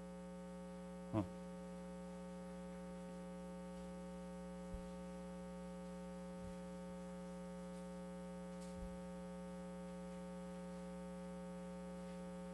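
Steady electrical mains hum with a buzzy stack of overtones. A man says a brief "ah" about a second in, and a few faint low thumps come later.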